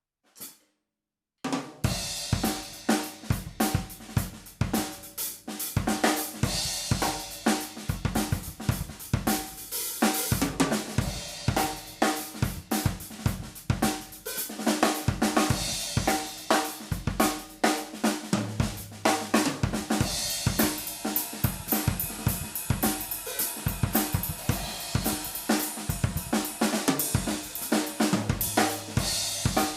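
Yamaha Stage Custom Birch bebop drum kit being played: snare, bass drum, hi-hat and cymbals in a busy continuous groove that starts about a second and a half in.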